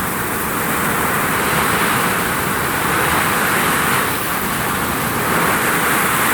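Heavy rain hitting a vinyl roof: a steady, dense hiss that swells and eases slightly.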